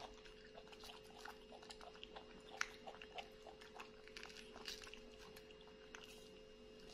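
Near silence with faint, irregular small clicks and crackles of a mandarin orange's peel being torn off by hand, over a faint steady hum.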